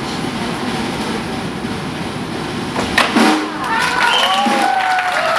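A steady rumbling din, then wooden cigar boxes clacking sharply together about three seconds in, followed by several sliding, whistle-like pitched tones.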